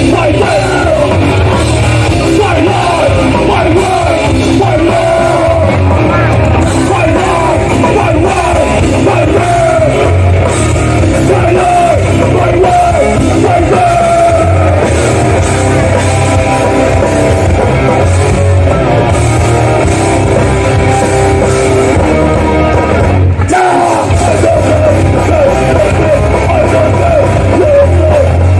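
Live hardcore band playing loud, with distorted guitars, drums and shouted vocals. The band stops briefly about three-quarters of the way through, then comes back in.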